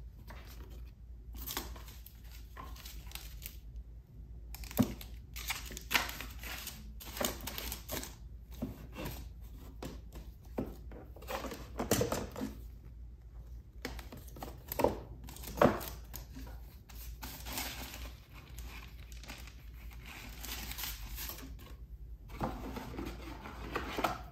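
Paper prints and plastic sleeves rustling and crinkling as they are slid into and pulled out of a desktop paper organizer, with a few sharp clicks and taps among them.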